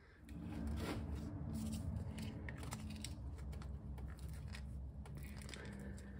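Faint handling of a plastic electrical connector and its wiring harness as the plow's wiring plug is joined, with light rustling and small clicks. A steady low hum runs underneath.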